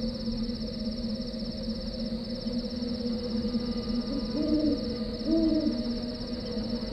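Night ambience: insects trilling steadily in a fast pulsing chirr over a steady low drone, with two low hoots from an owl about a second apart in the middle.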